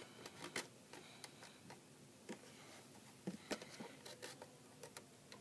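Faint, irregular plastic clicks and taps as a child's hand works the knobs of a Play-Doh toy oven.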